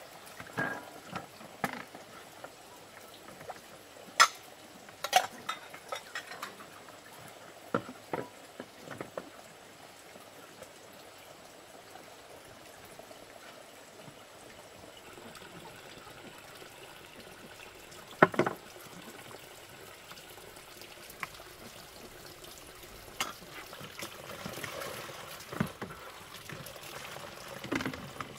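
Dishes being washed by hand in a plastic basin: water splashing and pouring, with scattered sharp knocks of ceramic bowls and plastic dishes against each other and the basin, the loudest a few seconds in and about two-thirds of the way through.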